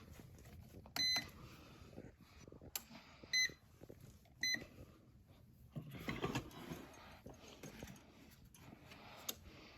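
Digital heat press control panel beeping three times at the start of a warm-up press: a short electronic beep about a second in, then two shorter beeps about a second apart a little later. Faint handling clicks and rustling sit between them.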